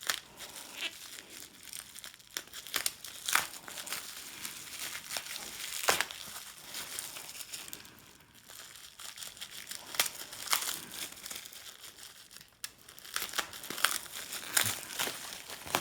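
Packaging crinkling and rustling as a parcel is unpacked by hand, with irregular sharp crackles and snaps throughout.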